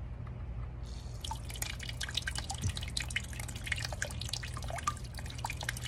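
Small DIY flower-pot fountain run by a mini 5-volt USB submersible pump starting up about a second in, its water then splashing and dripping steadily into the basin in many small plinks.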